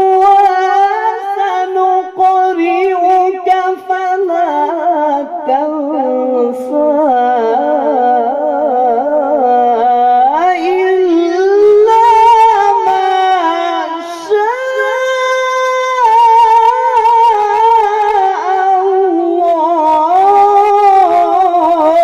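A man reciting the Quran solo in the melodic tajweed style, amplified through a microphone. He draws out one long, ornamented phrase with trills. The voice sinks low in the first half, climbs around the middle, steps up to a higher held note a few seconds later, and falls away near the end.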